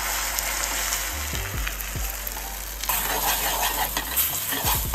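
Beaten eggs sizzling as they fry in a hot, lightly oiled steel frying pan, with a metal spoon stirring them.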